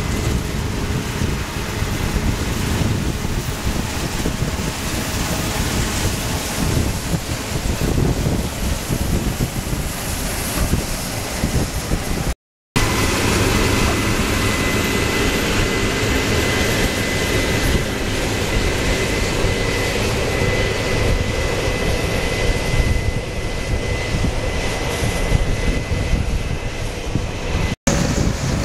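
Case IH AFX8010 combine harvester running at work in a pea crop: a loud, steady machine drone. After a brief dropout about twelve seconds in, a steady high whine runs over it, and the sound cuts out again briefly near the end.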